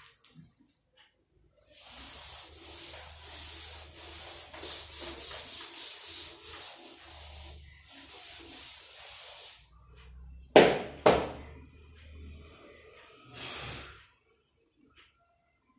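Repeated rubbing or scraping strokes, two or three a second, for about eight seconds. Then two sharp knocks about half a second apart, the loudest sounds here, and a short final rub.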